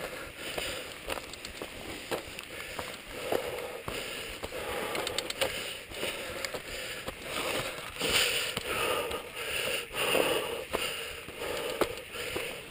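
Footsteps crunching on loose dirt and gravel while a mountain bike is pushed alongside on its knobby tyres, with many small irregular clicks and crackles.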